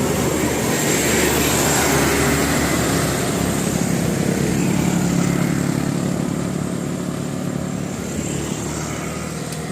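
Large tour bus's diesel engine running steadily and loudly, getting slightly quieter in the second half.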